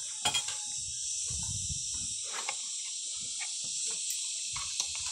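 Steady high-pitched chorus of insects, with chewing and eating sounds close by and a few sharp clicks, two just after the start and one near the end.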